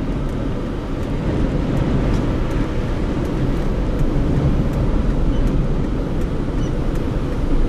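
A loud, steady low rumbling noise with no clear pitch, unbroken for the whole stretch.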